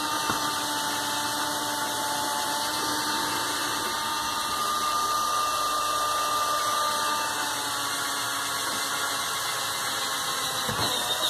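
Cordless drill-driver running steadily at a constant pitch as a 3 mm metal drill bit bores a hole into a split bamboo slat.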